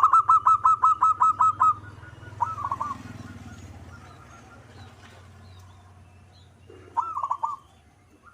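Zebra doves (perkutut) cooing: a rapid run of about a dozen short staccato notes over the first second and a half, then short three-note phrases near three seconds and again near the end. A faint low hum runs underneath.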